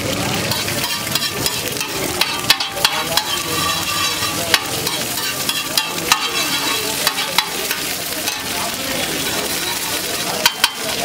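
Egg mixture sizzling on a large flat metal griddle while a metal spatula stirs and chops it. Irregular sharp clacks of the spatula striking and scraping the griddle sound over the steady frying hiss.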